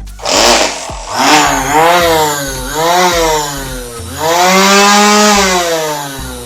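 Electric grass trimmer motor (Bosch EasyGrassCut 23, 280 W) switched on in several short bursts, each one whining up in pitch and spinning back down. The last run, about four seconds in, is the longest and winds down near the end. It is a test run of the freshly reloaded cutting line.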